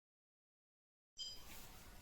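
Dead silence for about a second, then faint background hum and hiss cut in suddenly, with a brief high-pitched chirp as it starts.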